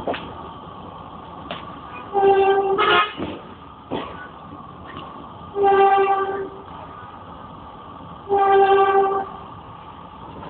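Philippine National Railways train horn sounding three blasts of about a second each, a few seconds apart, over the steady running noise of the moving train and occasional sharp clicks.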